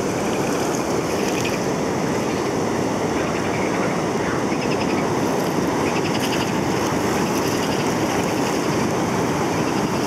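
Steady rushing of river water around a raft.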